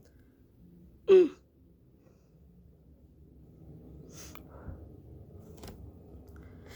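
Gemmy animated snoring Santa playing its recorded snoring: one loud, short snort about a second in that drops in pitch, followed a few seconds later by softer breathy exhales.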